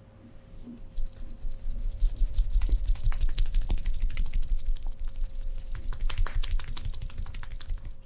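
A quick, irregular run of taps and clicks over dull thumps, from hands working rapidly on a person's body during a massage. It starts about a second in and stops suddenly near the end.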